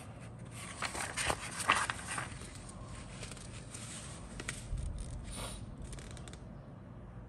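Paper instruction sheet rustling and crinkling as it is unfolded, with a few sharp crackles in the first two seconds, then softer rustling as it is smoothed flat.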